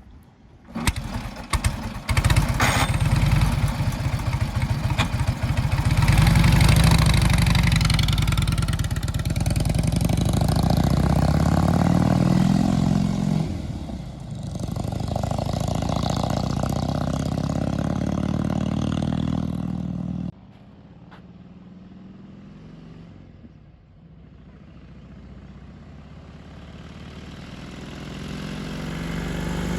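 A 1941 Indian Chief's flathead V-twin engine being started, catching after a few strokes about two seconds in and then running with the revs rising and falling. About twenty seconds in the sound drops suddenly to a much quieter level, then slowly grows louder again toward the end.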